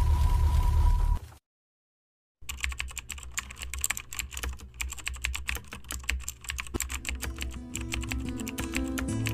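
Computer keyboard typing sound effect: rapid, irregular key clicks that start about two and a half seconds in, after a second of silence, over soft background music that gathers into plucked notes near the end. Before the silence, the tail of an intro sound with a steady high tone and deep rumble cuts off.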